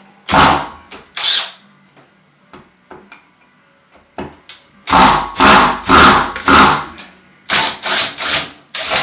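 Power drill driving a screw through backer board into the wood behind it, in short repeated bursts of a few tenths of a second each. The screw is binding on something behind the board, which the installer takes for a nail.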